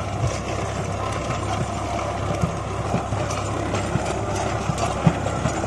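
Sonalika tractor's diesel engine running steadily under load while driving a rotavator through dry soil, a low drone with irregular clattering knocks from the tilling.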